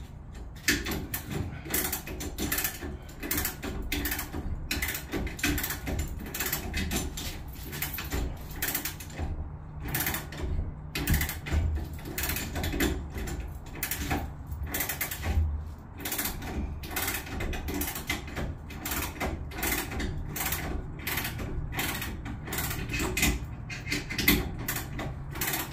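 Hand ratchet clicking rapidly and steadily as bolts are tightened on a metal string-trimmer rack, with a few louder knocks of metal against the rack.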